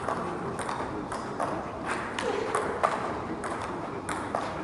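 Table tennis ball being struck back and forth in a rally: a series of short, sharp clicks as the celluloid ball hits the rackets and the table, at uneven intervals. Voices sound faintly in the background.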